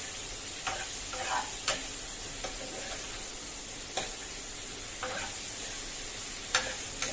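Chopped onion and garlic sizzling in mustard oil in a kadhai, with a steady frying hiss. A metal spoon stirring them scrapes and taps against the pan several times, most sharply near the end.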